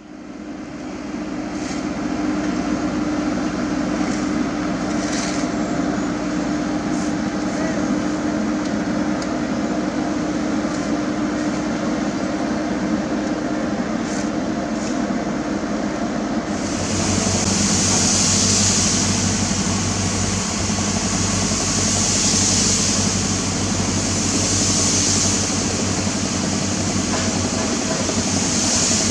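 Diesel engines of heavy asphalt-paving machinery running steadily. About two thirds of the way through, a loud hiss joins that swells and eases a few times, over a deeper steady hum.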